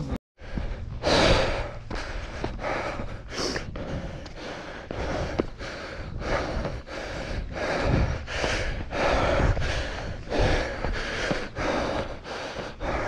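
A hiker's heavy, rhythmic breathing from the exertion of scrambling up a steep rocky slope, about three breaths every two seconds.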